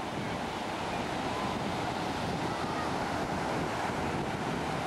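Ocean surf washing and breaking in a steady rush of white water.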